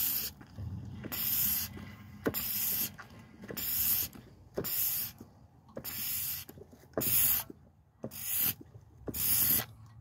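A hand fluid extractor sucks the last of the fuel and water out of a Murray push mower's gas tank. It makes about nine short hissing suction strokes, roughly one a second.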